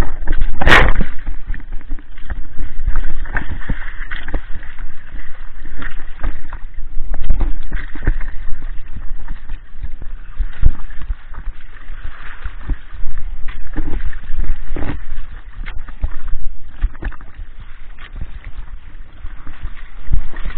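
Water rushing, gurgling and slapping against the hull and outrigger float of a Hobie Adventure Island sailing kayak under way, with many short splashes. A single sharp knock about a second in is the loudest sound.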